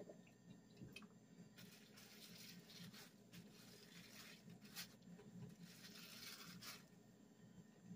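Near silence, with faint rustling and wet handling noises three times as a raw duck is worked over in a stainless steel sink.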